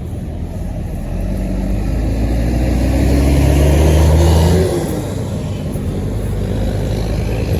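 A tour bus driving past close by: its engine note builds to a peak about four seconds in, then its pitch and level drop as it passes, leaving lower traffic noise.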